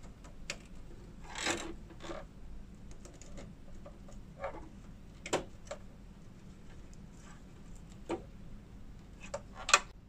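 Scattered small plastic clicks and rustles of PCIe power cable connectors being handled and pushed into the power sockets on an EVGA GeForce RTX 3080 Ti graphics card, with a few louder clicks among the lighter ones.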